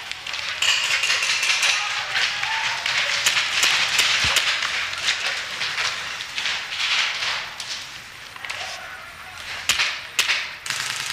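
Paintball markers firing in scattered sharp pops and snaps, several close together around the middle, over a steady noisy hiss.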